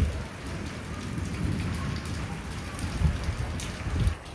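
Heavy rain falling steadily on a paved alley, with a few brief low rumbles about three and four seconds in.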